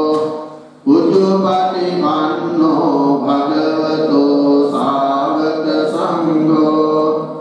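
Slow Buddhist devotional chanting in Pali, led by a monk into a microphone, on long held notes that step up and down in pitch. The chant breaks for a breath just under a second in, then resumes.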